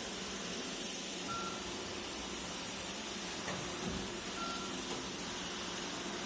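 iRobot Roomba e5 robot vacuum running with a steady whirr of fan and brushes. A short high beep sounds twice, about three seconds apart.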